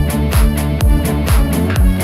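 Background dance music with a steady thumping beat, about two beats a second.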